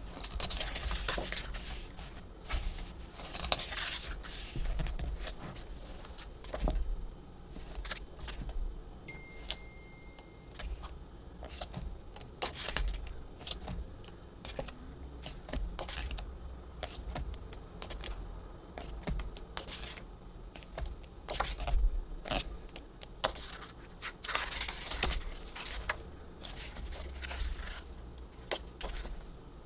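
Glossy photobook pages being turned and handled by hand: papery swishes as pages turn, with many small clicks and taps of fingers and nails on the paper and cover.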